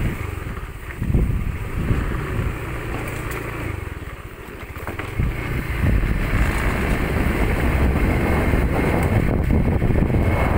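Motor scooter running along a rough dirt track, its engine mixed with road rumble and wind on the microphone. It eases off briefly about four seconds in and is louder from about five and a half seconds.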